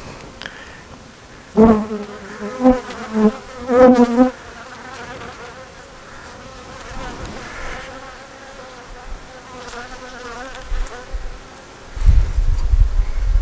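Honeybees buzzing around an open hive. Several bees fly close past the microphone between about 1.5 and 4 seconds in, their hum loud and wavering in pitch, over a softer steady hum of the colony. A low rumble near the end.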